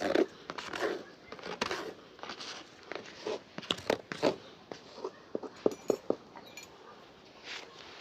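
Shoe-shining work at close range: irregular taps and clicks mixed with short rubbing strokes, with a quick run of taps a little past the middle.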